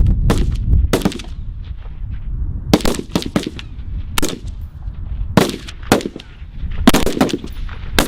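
Rifle shots from several firing points on a range, about ten at uneven spacing, some close together and loud, others fainter and farther off.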